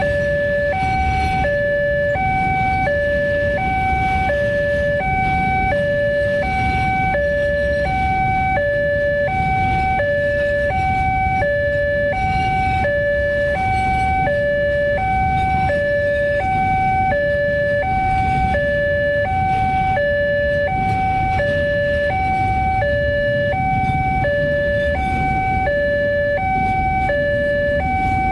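Railway level-crossing warning alarm sounding a steady two-tone high-low chime, about one high-low cycle a second, over a continuous low rumble.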